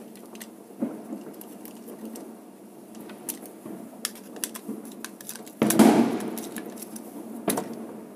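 Close handling noise from wiring a plastic switch-and-socket board: small clicks and rustles of wire and plastic, a louder rubbing bump about five and a half seconds in, and a sharp click about two seconds later.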